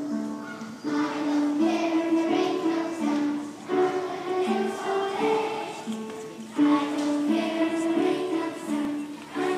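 Music for a folk circle dance: a sung tune with instrumental accompaniment, its melody moving in short held notes with repeating phrases.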